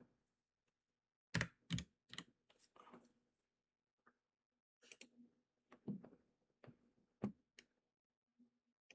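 Faint, irregular clicks of computer keyboard keys, about ten scattered taps with pauses between them.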